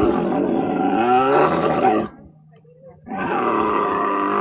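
An animal calling loudly: one long, wavering call, a break of about a second, then a second long call.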